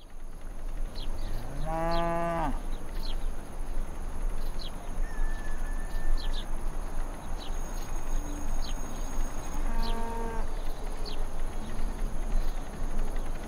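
Cows mooing twice: a long, steady moo about two seconds in and a shorter one around ten seconds. Short high chirps and a steady outdoor background are heard throughout.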